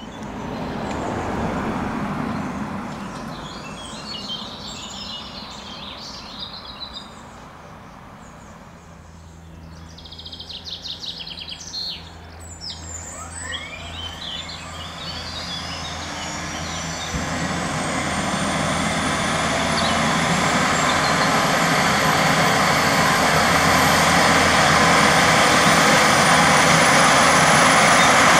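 Airbus H135 helicopter's Pratt & Whitney PW206B3 turboshaft engines starting up: a low hum comes in, then a turbine whine rises steadily in pitch while the engine noise grows louder through the second half. Birds chirp in the first half.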